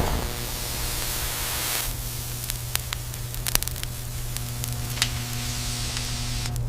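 Machinery running steadily: a constant hum under an even hiss, with scattered sharp clicks.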